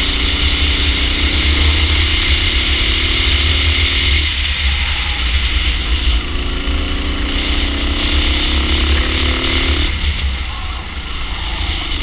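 Racing kart engine recorded onboard, its note rising in pitch as the kart accelerates, then falling away about four seconds in and again about ten seconds in as the throttle comes off for the corners. Heavy wind rumble on the microphone runs underneath.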